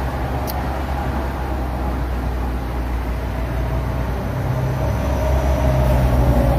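A motor vehicle's engine running steadily at a low pitch, with a fainter higher tone that slowly falls over the last few seconds.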